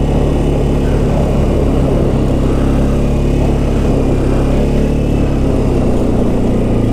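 Four-wheeler (ATV) engine running steadily under way, a constant low drone.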